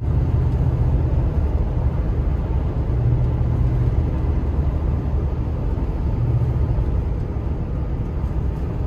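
Ford F-150 pickup cruising on a road, heard from inside the cab: a steady low drone of engine and tyre noise that swells a little now and then.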